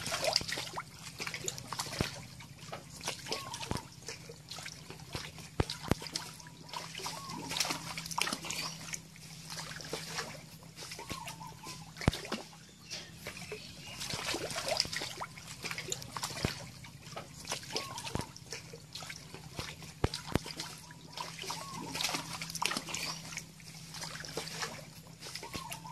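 Water splashing and sloshing in a shallow muddy pond as a snake grapples with frogs, with frequent short sharp clicks and a low steady hum underneath.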